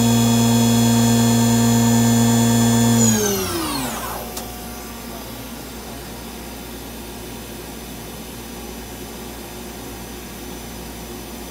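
Star SR-32J CNC Swiss-type lathe spindle running at a steady speed with a high whine, then spinning down about three seconds in, the whine falling in pitch and dying away within about a second. After that only the machine's quieter steady hum remains.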